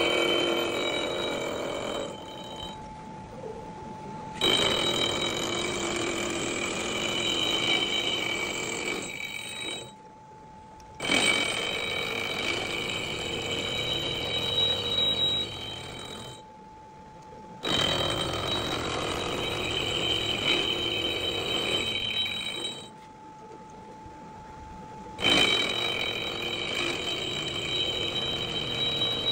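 Vertical milling machine's end mill cutting steel off a crankshaft's counterweights, trimming them for balancing, in repeated passes of about five seconds, each with a high, steady ringing squeal. Between passes only the spindle's steady whine is left.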